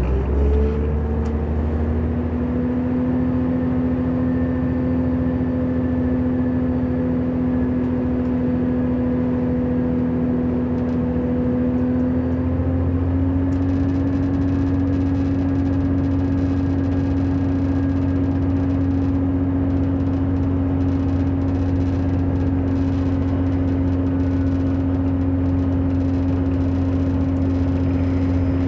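Class 168 Turbostar diesel multiple unit accelerating, heard from inside the passenger saloon: its underfloor MTU six-cylinder diesel engine runs hard with a steady droning tone. About halfway through, the tone steps slightly higher and a deeper rumble comes in.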